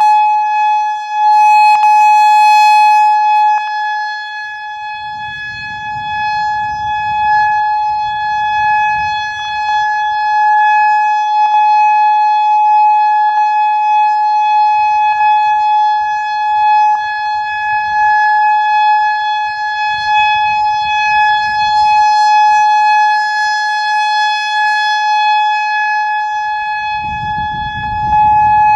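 Whelen 3016 electronic outdoor warning siren sounding a steady tone for a siren test: one held pitch with its overtones, loud and unbroken, swelling and fading slightly. A low rumble comes and goes underneath.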